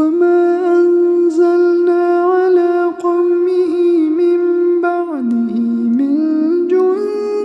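A man's voice chanting Quranic recitation in long, melodic held notes. The pitch dips about five seconds in, then climbs back up.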